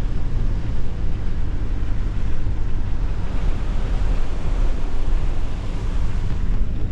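Car driving on beach sand: a steady low engine and tyre rumble with wind noise over it.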